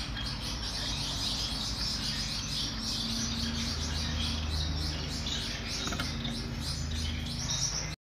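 Zebra finch singing: a continuous fast run of high chirps and notes.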